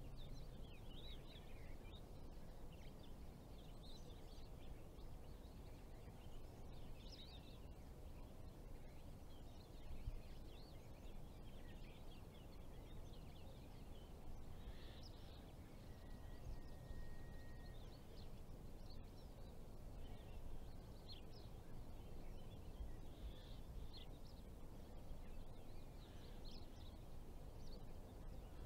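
Faint outdoor ambience: a steady low rumble with small birds chirping and twittering on and off throughout.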